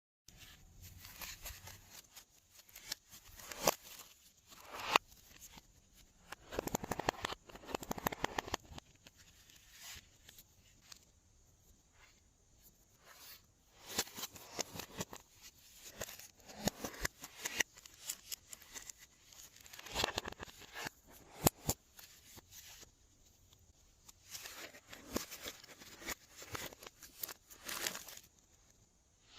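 Glossy slime being squished and stretched by hand, with irregular sticky crackles, clicks and pops in clusters.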